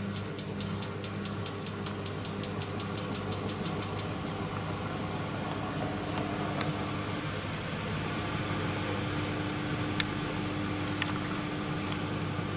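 Miele W1 WMF121 front-loading washing machine running with water in the drum: a rapid regular ticking, about four a second, stops about 4 seconds in. A steady hum carries on under it, a steady tone joins about halfway, and there are two sharp clicks near the end.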